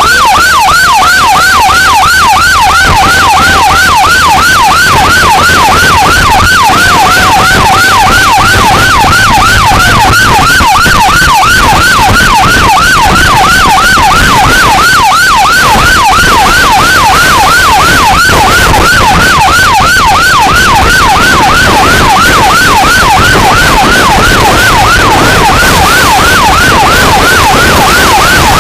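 Fire truck siren sounding a fast yelp, sweeping up and down about two to three times a second, very loud and steady throughout. A lower held tone comes in twice in the first ten seconds.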